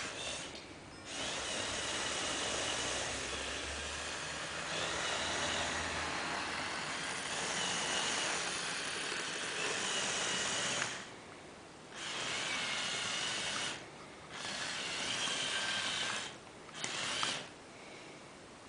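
Lego bulldozer's small electric motors and plastic gears whirring with a thin whine. The sound runs in stretches that stop and restart: there is a pause about eleven seconds in and shorter ones near the end.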